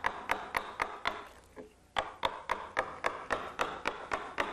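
Round wooden carver's mallet striking a carving gouge, driving it through the wood to rough out a relief carving. Sharp knocks about four a second, with a short pause a little over a second in.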